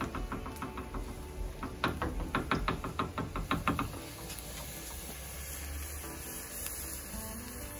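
A small pan of coconut oil with cumin seeds and garlic frying on a gas burner. Through the first half there is a quick run of metal clicks, about four or five a second, as the pan is handled on the grate; then the oil sizzles steadily.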